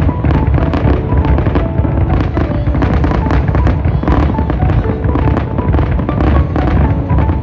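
Fireworks going off in rapid succession, a dense string of bangs and crackles, with music playing at the same time.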